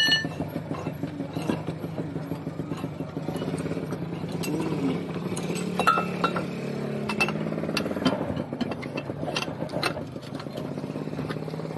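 An engine running steadily, with scattered metallic clinks and knocks from a fire hose coupling and hydrant fitting being handled and joined. A ringing metal strike comes right at the start.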